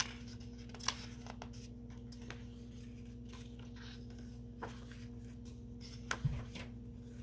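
Paper pages of a hardcover book being turned by hand: soft rustles and light flicks, with a sharper page snap about a second in and again near the end. A steady low hum runs underneath.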